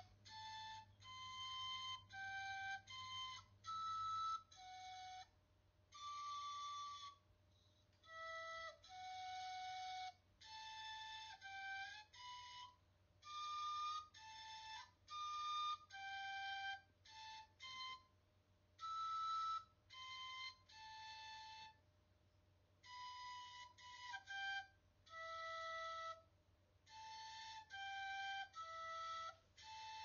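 Outro music: a solo melody in a flute-like tone, one held note at a time with short gaps between notes.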